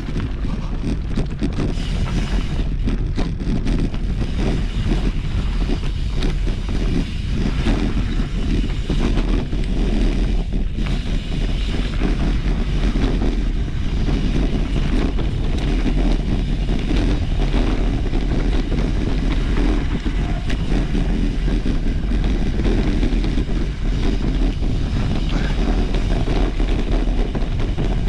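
Wind buffeting a rider-mounted camera microphone, with a steady low rumble and irregular small knocks and rattles from a mountain bike riding over a trail.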